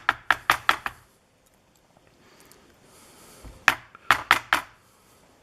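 Quick, hard taps while gutting a lock core, knocking stubborn, greasy pins and springs loose: a run of about four taps at the start, a pause, then another quick run of about five a little before the 4-second mark.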